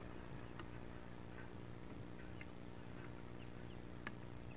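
Wood duck ducklings peeping faintly now and then, with a louder peep about four seconds in, over a steady low hum.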